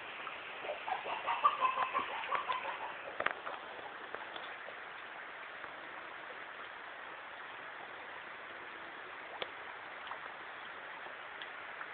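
Steady hiss of falling rain. From about half a second to three seconds in, a bird gives a quick run of short, choppy calls over it. A few sharp ticks follow later.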